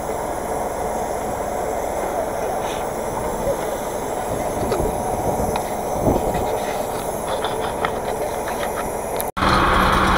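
Wheeled farm tractors pulling harrows across a field: a steady, noisy engine drone with scattered faint clicks, heard from outside the cab. Near the end it cuts off abruptly and gives way to a louder, steady tractor engine drone heard inside the cab.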